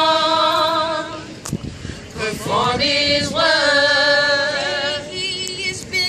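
A small mixed group of women and a man singing a gospel song a cappella, unaccompanied voices holding one long note, then, after a short break, a second long phrase.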